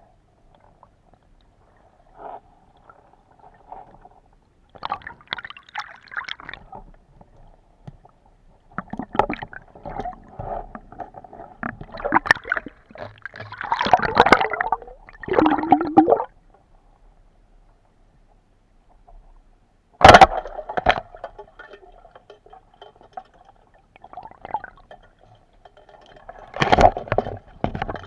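Underwater water noise: muffled gurgling and bubbling in irregular bursts, with one sharp knock about twenty seconds in.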